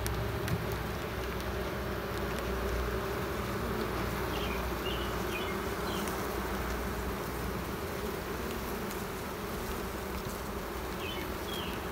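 Steady hum of a mass of honeybees from an opened hive, with a frame crowded with bees lifted out of the box.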